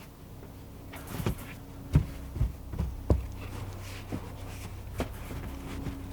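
Scattered dull thumps and knocks over a low steady hum, the sound of foam pieces and tools being handled.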